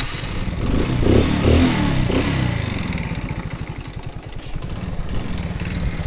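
Alpha moped's small single-cylinder four-stroke engine just started on the electric starter with the choke on. It revs up and down briefly about a second in, then settles into a steady low idle. It has just caught after a carburettor clean and is holding idle, though at low revs.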